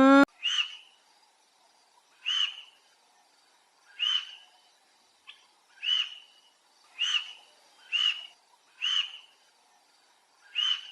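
An animal giving short, high chirping calls, about eight of them at roughly one-second intervals. At the very start, the tail of a lower, drawn-out call rises in pitch and cuts off.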